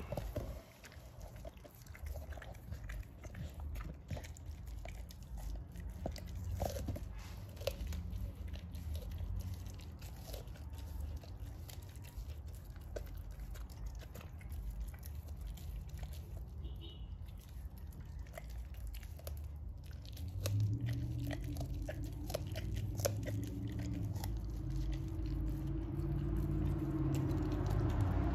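American bulldog licking and chewing raw chicken, with wet mouth sounds and many small clicks. From about twenty seconds in a low drone builds underneath and grows louder.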